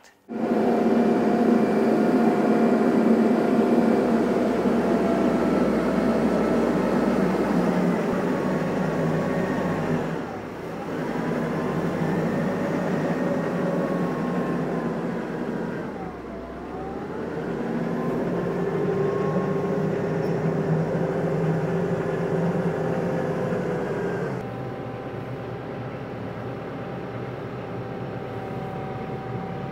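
Engine running steadily, its speed sagging and recovering twice as if loaded down, then dropping to a quieter, steadier sound near the end.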